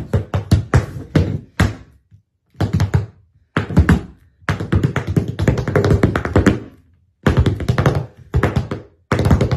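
Tap shoes' metal plates striking a hard floor in fast, rhythmic runs of taps, broken by several short silent pauses.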